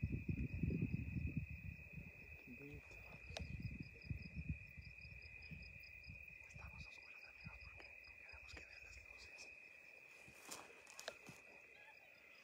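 Insects trilling in one steady, high, unbroken drone. Low rustling and thumps sound in the first half and die away, with a few faint clicks near the end.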